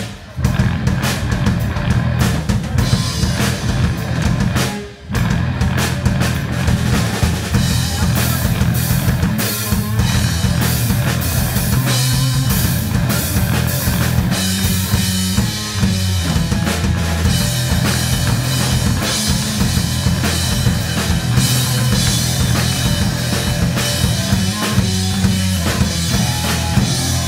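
Live rock music from an electric guitar and a Ludwig drum kit, with heavy bass drum, snare and cymbals and no singing. The playing stops briefly twice, right at the start and about five seconds in.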